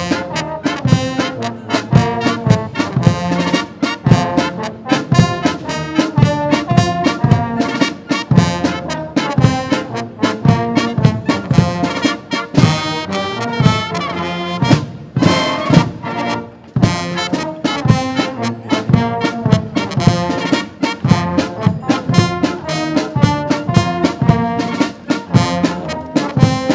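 Brass band playing a march: trumpets and trombones carry the tune over a steady drum beat.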